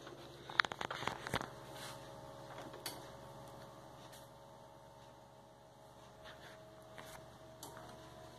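A few quick clicks and knocks of fingers handling the plastic rear casing of a CRT computer monitor, about half a second to a second and a half in, then a faint steady electrical hum.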